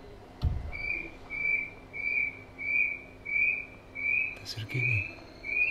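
Recorded call of a little spotted kiwi played from a museum exhibit's speaker: a run of about nine high whistles, evenly spaced, a little over half a second apart. A low thump comes just after the start.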